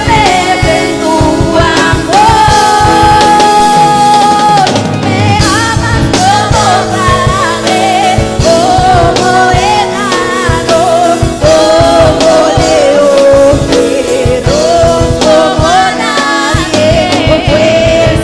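A girl sings a Spanish-language Christian worship song into a microphone over instrumental accompaniment with drums. She holds a long note about two seconds in and another near twelve seconds.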